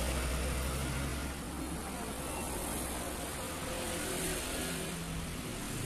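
Steady low background hum and hiss, with no distinct event standing out.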